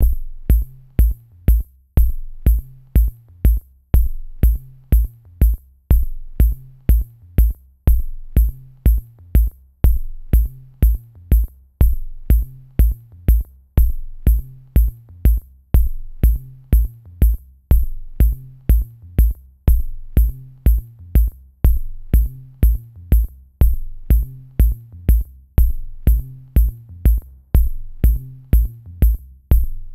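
Electronic background music with a drum-machine beat, a steady kick drum at about two beats a second over a bass line.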